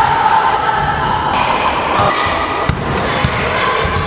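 Volleyball bounced on a wooden gym floor before a serve, a few sharp thuds well under a second apart in the second half, over a steady din of voices echoing in the hall.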